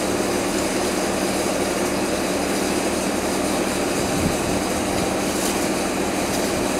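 Kubota turbo diesel engine of an enclosed truck-mounted sewer jetter running steadily, throttled down to cool, while its hydraulic hose reel draws the jetting hose back in.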